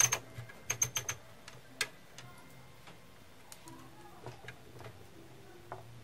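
Sharp metallic clicks from a manual typewriter being worked on at the repair bench, its keys and typebars snapping. A quick cluster of loud clicks comes in the first second or so, then sparser, lighter ticks follow, over a faint low hum.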